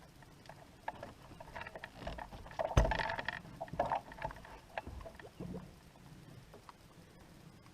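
Knocks, bumps and rustling of someone moving about and handling things in a fishing boat, with one loud thump about three seconds in.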